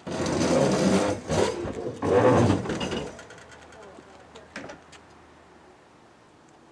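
Tool work on the front seat's hold-down bolt of a car: loud mechanical whirring and clatter for about three seconds, then a single click about halfway through.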